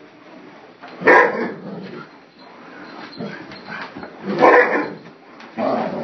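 A dog barking at a vacuum cleaner: three loud barks, one about a second in and two close together near the end.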